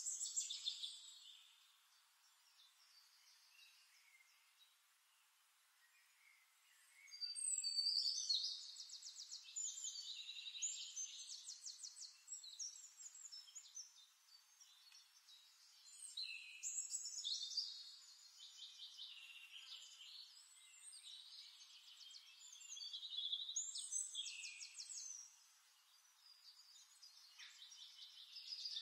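Birdsong: bursts of high, fast trills and chirps, each several seconds long, separated by quieter spells.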